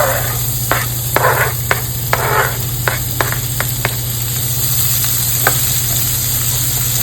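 Chopped onions sizzling in hot oil in a frying pan, with a utensil clicking and scraping against the pan several times in the first few seconds as they are stirred. A steady low hum runs underneath.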